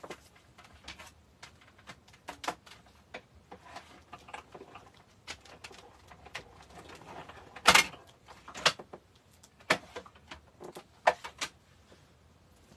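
Embossing folder being cranked through a die-cutting and embossing machine: a run of irregular clicks and clunks, louder and more frequent in the second half.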